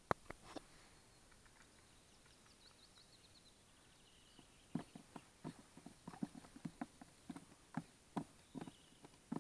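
Calm lake quiet with a small songbird's faint trill falling in pitch a few seconds in. In the second half, a loose run of irregular soft knocks and taps, about two a second, is the loudest sound.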